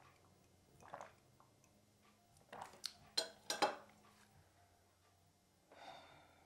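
Porcelain coffee cup and saucer: a few soft sounds, then several sharp clinks of china on china about three seconds in, as the cup is handled and set down.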